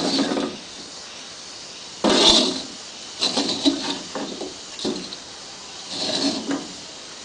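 Spatula scraping dry serundeng (fried grated coconut) around a wok, in about five short scrapes roughly a second apart.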